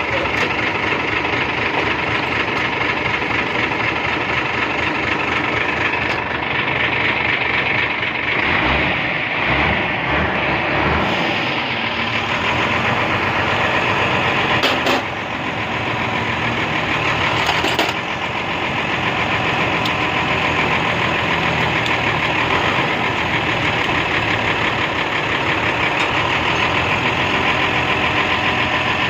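Dump truck's diesel engine running steadily at idle, with a sharp click about halfway through and another a few seconds later.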